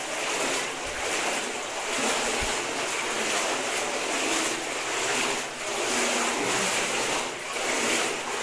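Flowing water of a small mountain river, a steady rushing noise that swells and eases a little.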